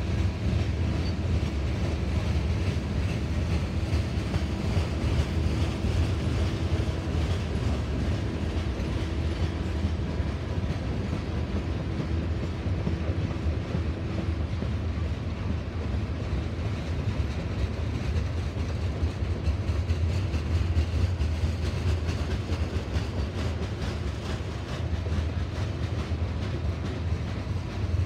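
Freight cars of a long manifest train rolling past: a steady low rumble with wheels clacking over the rail joints. A faint steady whine runs through the first half and fades out about halfway.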